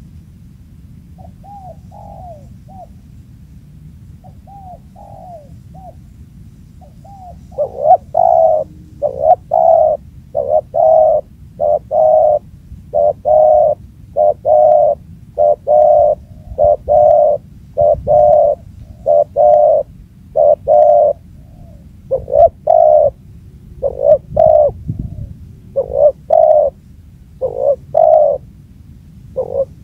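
Spotted dove cooing: a few faint coos early, then from about eight seconds in a loud, close run of coos repeating about once a second, over a steady low background rumble.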